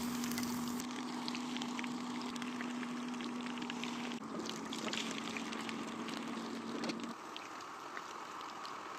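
Food sizzling and crackling in hot oil, with a steady low hum underneath that stops about seven seconds in.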